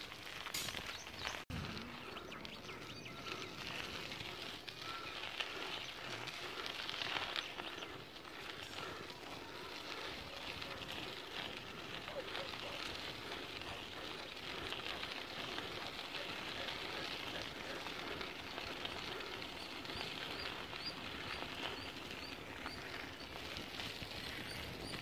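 Rural outdoor ambience: a steady hiss with scattered small bird chirps.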